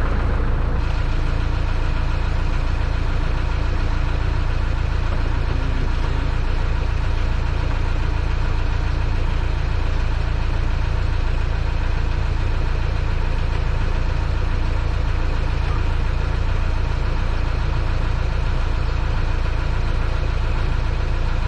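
Motorboat engine running steadily, a constant low drone with no change in pitch.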